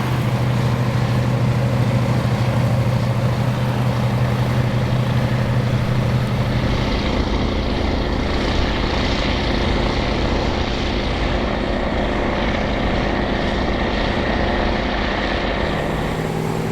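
Big diesel engines of classic articulated tractors pulling ploughs under load, a steady deep drone. About seven seconds in the engine note changes to a lower, fuller rumble as another tractor comes to the fore.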